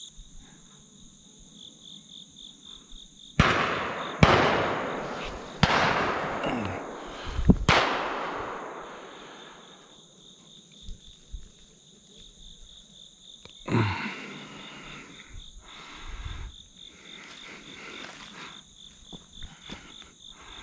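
Shotgun blasts: four shots within about four seconds, each with a long echoing tail, then a fifth, weaker shot about ten seconds later. A steady high buzz of insects runs underneath.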